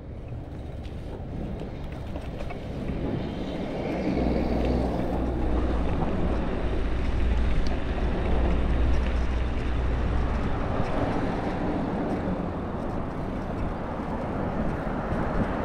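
Road traffic going past, growing louder. A large vehicle's engine rumbles low and steady from about four to ten seconds in.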